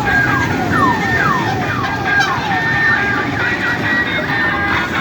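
Electronic siren-like wail: repeated falling sweeps, about two a second, that change to a quicker up-and-down warble about three seconds in, over a steady rumble.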